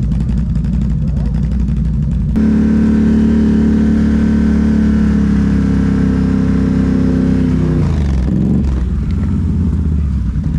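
Can-Am Renegade XMR 1000 ATV's V-twin engine running while riding. It steps abruptly louder a couple of seconds in, its pitch slides slowly lower for about five seconds, then it revs up briefly near the end.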